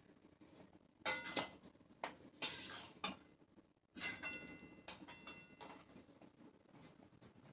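Metal kitchen utensils and vessels clinking and knocking, several light strikes with brief metallic ringing, and a short scrape between them.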